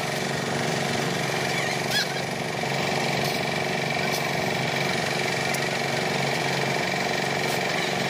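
Diesel engine of a portable drum concrete mixer running steadily, with one short sharp knock about two seconds in.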